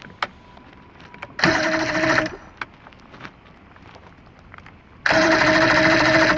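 Electric starter of a V4 Johnson outboard cranking the engine in two bursts, a short one of about a second and a longer one near the end, each a steady whirring whine. The engine is turning over without starting.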